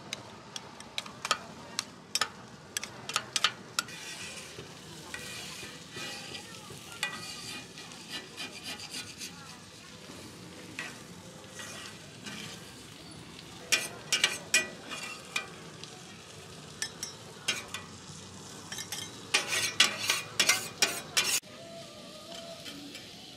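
Metal spatulas scraping and clacking on a hot steel griddle and pan as cheese and corn are stirred and scraped up, over a steady sizzle. The sharp scrapes come in quick clusters near the start, midway and toward the end.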